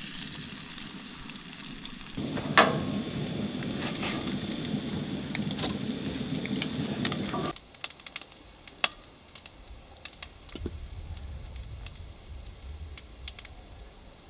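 Eggs frying in a pan on a camp stove, sizzling and crackling. The sizzle grows louder about two seconds in, with a sharp click soon after, and stops abruptly about halfway through, leaving a quieter stretch with a few light clicks.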